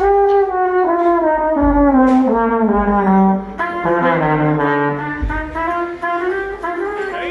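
Brass instruments playing a sustained phrase together during a band's sound check, with a low part sliding steadily downward through the middle of the phrase.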